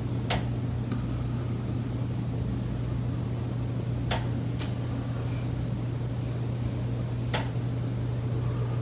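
Sharp knocks from the high-rise building's structure, a few of them at irregular intervals of several seconds, over a steady low hum. The knocking is a recurring daily building noise that the tenant says comes from the common elements.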